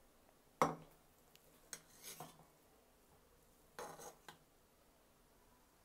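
Kitchen utensils knocking and scraping against dishes as biryani is served out: a sharp knock with a short ring about half a second in, then two more short bouts of clinks and scrapes around two and four seconds.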